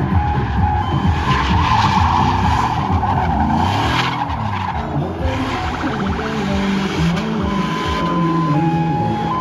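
Chevrolet Silverado pickup doing donuts: rear tyres squealing without a break on the asphalt, and the engine revving with its pitch rising and falling.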